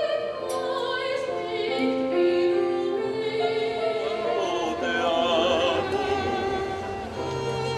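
Music with operatic singing: a voice holding long notes with a wide vibrato over sustained accompaniment.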